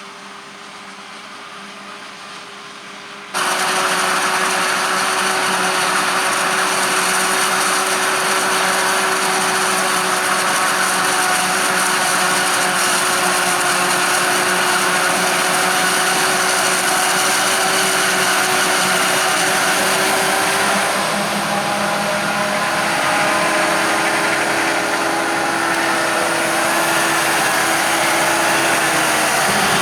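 Machinery running steadily, at first a quieter engine hum. A little over 3 s in it jumps suddenly to a loud, dense machine noise with a high whine, typical of a Claas Jaguar 870 forage harvester chopping maize, and the pitch of its tones shifts about two-thirds of the way through.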